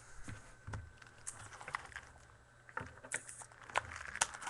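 Handling noises of a trading-card box and its packs being opened: scattered light clicks and taps of cardboard and foil wrappers, with brief rustling about three seconds in.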